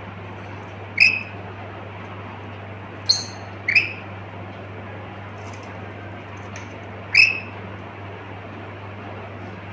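A pet lory, a small parrot, giving four short, sharp calls, two of them close together in the middle, over a steady low hum.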